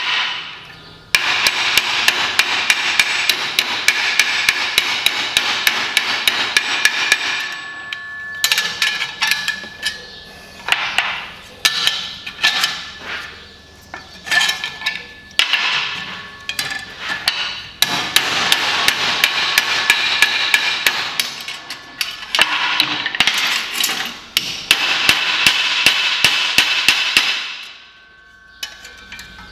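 Steel body hammer striking a sheet-steel flange clamped between angle irons on a steel bench, fast runs of blows with the metal ringing, broken by short pauses as the metal is folded and shaped.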